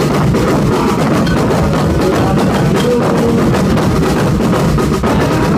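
Brazilian afoxé percussion ensemble playing a steady rhythm on drums and hand percussion, a dense pattern of quick strokes.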